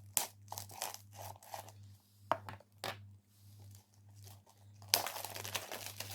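Plastic shrink-wrap being torn and peeled off a Blu-ray case: scattered crackles and snaps, then steady crinkling from about five seconds in.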